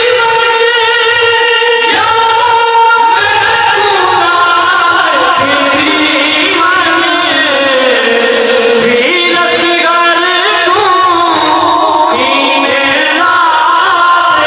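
A man singing a devotional lament (kalam) in long, held, ornamented phrases that slide from note to note.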